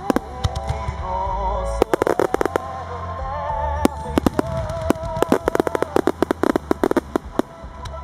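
Fireworks display: aerial shells bursting in rapid volleys of sharp bangs, thickest about two seconds in and again from about five to seven seconds, over music.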